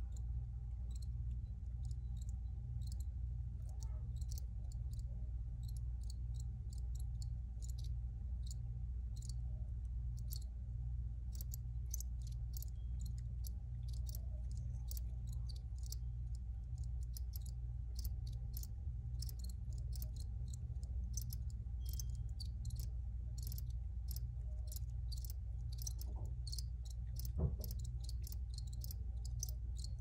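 Crickets chirping: short, high chirps at an uneven pace, several insects overlapping and growing more frequent in the second half. Underneath runs a steady low hum, and a single soft thump sounds near the end.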